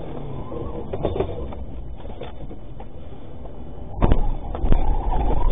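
Vehicle running with a steady low rumble, then several loud sharp bangs about four seconds in, with a rising whine between them near the end.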